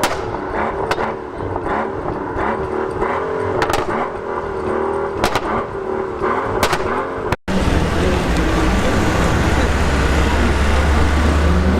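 Mercedes S65 AMG's twin-turbo V12 through an Akrapovic exhaust, the engine note rising and falling with repeated sharp crackles. After a sudden cut, a louder, steady low rumble, with the engine pitch climbing near the end as the car accelerates.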